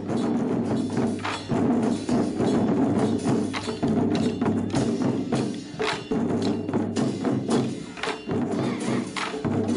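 A children's ensemble of taiko-style barrel drums played with wooden sticks: many drums struck together in a fast, dense rhythm.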